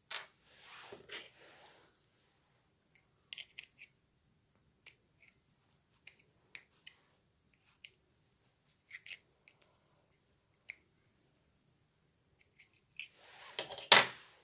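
Small screwdriver tip clicking and scraping against the plastic battery compartment of a Mini Cooper key fob while prying out the coin-cell battery: scattered sharp little clicks, with a louder cluster of clicks and rustling near the end as the battery lifts out.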